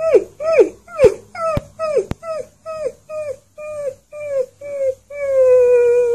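A fluffy husky-type puppy howls in a string of short 'woo' calls, about two a second, each dropping in pitch. About five seconds in, it breaks into one long held howl.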